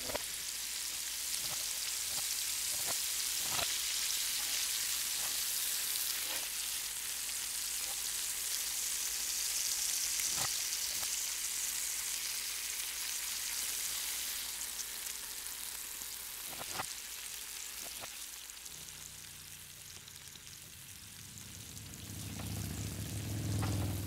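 Sausages and burgers sizzling on a kettle grill's grate: a steady hiss with scattered sharp clicks and pops. A low rumble builds near the end.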